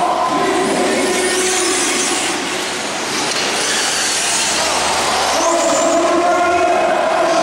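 Several R/C truggies racing, their small engines running at high revs in steady, high-pitched tones that shift slightly in pitch with the throttle.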